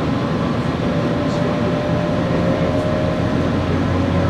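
Electric commuter train (JR Kyushu 817 series 3000, Hitachi IGBT-VVVF traction) running at speed, heard from inside the passenger car. Wheel-on-rail rumble and running noise, with a thin, steady motor whine that rises slightly in pitch.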